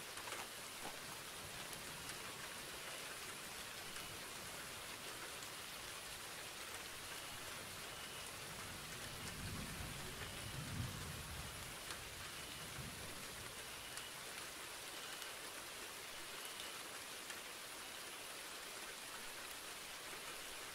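Faint, steady rain falling, with a brief low rumble about halfway through.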